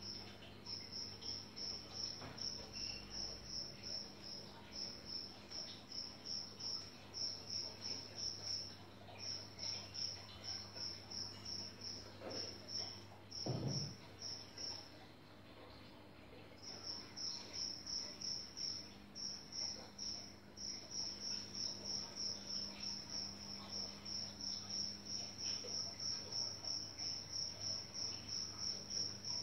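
A cricket chirping in a steady, even run of high-pitched pulses, pausing for about two seconds past the middle, over a low steady hum. A single dull knock about halfway.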